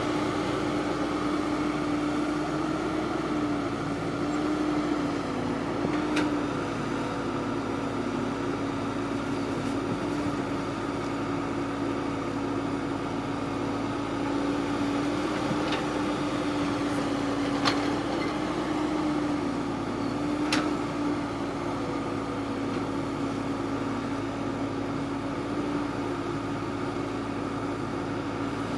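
Harvesting machine's engine running at a steady speed, a constant drone that wavers slightly in pitch, with a few sharp clicks.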